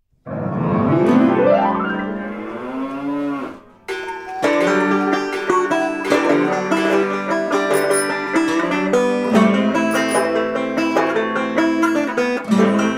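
Background music: a long pitched tone that slides and bends for the first few seconds, then lively plucked-string music with many quick picked notes from about four seconds in.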